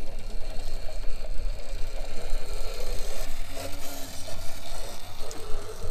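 Electric motor and gears of an RC scale trial truck whining steadily as it crawls slowly over rough ground.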